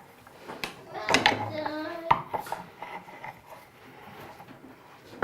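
Hard plastic toy parts clicking and knocking together as pieces are handled and fitted, with a few sharp clicks. A child's voice murmurs briefly between about one and two seconds in.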